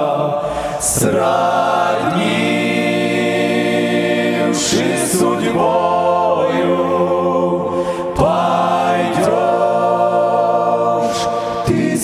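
Male vocal ensemble singing a slow Russian hymn unaccompanied, in close harmony through microphones, with long held chords.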